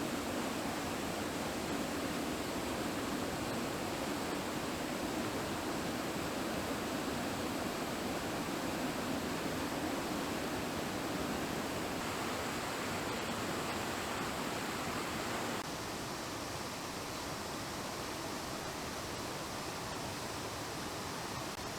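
Steady rush of water spilling over a small creek waterfall, an even hiss with no distinct events. About three quarters of the way through it steps down a little in level and brightness.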